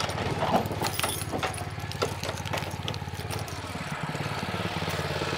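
PATRIOT Ural walk-behind tractor's petrol engine idling steadily, with a few light clicks and knocks in the first couple of seconds.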